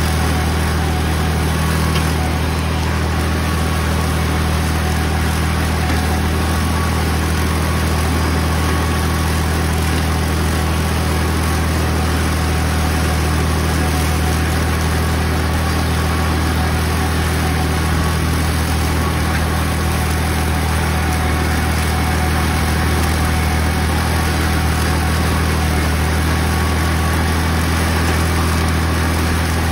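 Farm tractor engine running steadily as it drives a tractor-mounted, belt-and-pulley mower cutting down strawberry plants in the row, with a deep, even hum.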